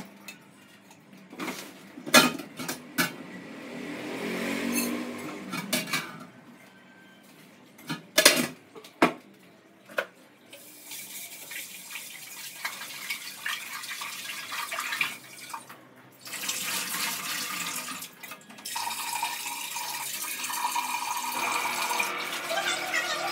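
Clatter and knocks of kitchen pots and utensils, then water running from a kitchen tap from about ten seconds in, stopping briefly partway through and starting again.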